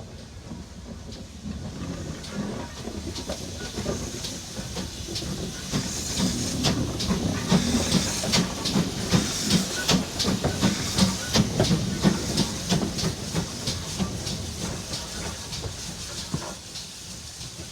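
Steam train going by: hissing steam and a regular beat about two times a second, building up, loudest in the middle, then fading away.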